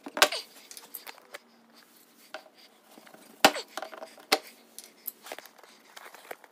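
Black plastic UTV body panel being pried and pulled loose by hand, its plastic clips and edges giving a scatter of sharp clicks and knocks. The two loudest come about a quarter second in and about three and a half seconds in.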